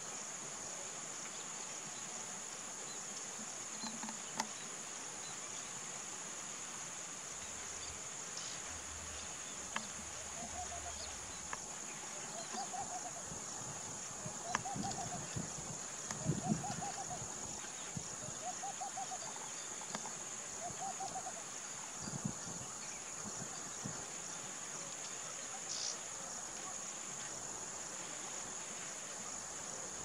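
Steady high-pitched insect drone, with a bird giving a series of six short repeated calls about two seconds apart through the middle stretch. A few faint clicks and thumps come in between.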